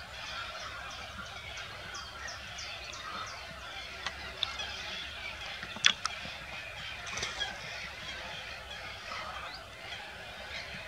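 Waterbirds calling: a dense, steady chatter of overlapping calls with honking notes. About two seconds in comes a quick run of short, high, falling call notes, and near six seconds a single sharp click.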